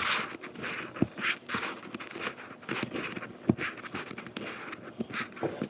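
Buckyballs neodymium magnet spheres clicking and snapping together as fingers pull them off a strand and pinch them into a nine-ball triangle. There are many small irregular clicks mixed with scratchy handling noise.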